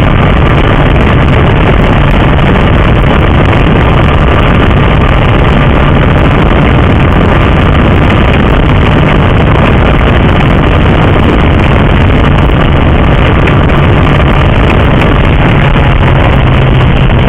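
Honda CBR1000RR Fireblade's inline-four engine at a steady cruise, heard through heavy wind rush on a bike-mounted camera. Very loud and even, with no revving or change of pitch.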